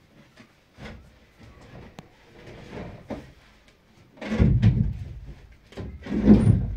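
Scattered knocks and thumps, the two heaviest about four and a half and six seconds in.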